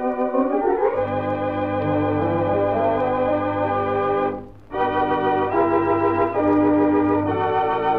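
Wurlitzer theatre organ playing a slow melody over held chords, heard on a 1926–1933 recording. About a second in, the notes slide up into a phrase and a deep pedal bass comes in under them. There is a brief pause about halfway through before the playing resumes.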